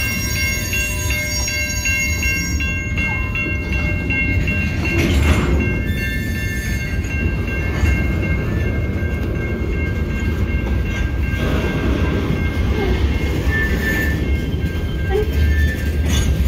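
Freight train of covered hopper cars rolling past with a steady low rumble. A level-crossing bell rings in rapid pulses through the first three seconds or so, then fades under the rumble.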